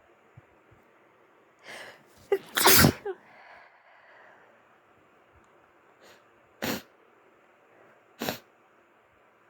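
A person sneezes once, loud and sudden, about two and a half seconds in, after a quick breath in, then sniffles two or three times through a congested nose near the end of a flu.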